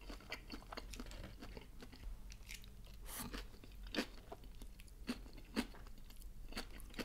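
Close-miked chewing of a mouthful of food, with soft crunches and wet mouth clicks scattered through it; the loudest come about three, four and five and a half seconds in.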